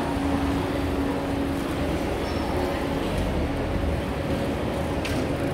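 Steady low rumble of busy city-street ambience, with a low steady hum that is strongest in the first couple of seconds and then fades back into the rumble.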